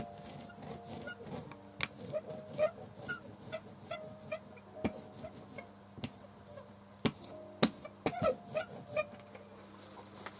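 A hand pressing and rubbing hard on a masking sheet laid over an end-grain woodblock, with scattered small squeaks, creaks and clicks from the sheet and the work desk rocking under the force.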